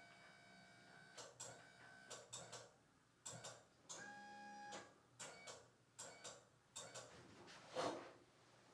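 Faint irregular scuffs and soft clicks of hands working on a client's body and clothing during manual therapy, a dozen or so short strokes spread unevenly, the loudest near the end.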